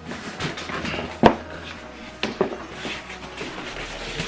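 Soundbar box packaging being handled and unpacked: rustling with several sharp knocks and taps, the loudest about a second in.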